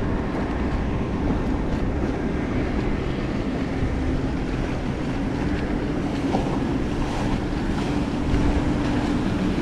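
Wind buffeting the microphone over water sloshing along a kayak's hull. About three seconds in, a steady engine drone from a passing powerboat comes in and grows a little stronger.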